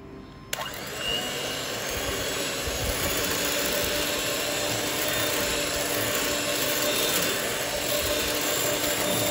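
Electric hand mixer switched on about half a second in, then running steadily, its two wire beaters whisking chocolate mixture into whipped cream in a glass bowl.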